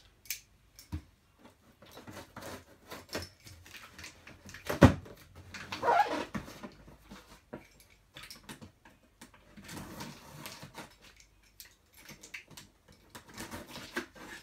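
A large cardboard box being handled and opened with a utility knife: scattered knocks, scrapes and rustles of cardboard and packing tape, the loudest a sharp knock about five seconds in.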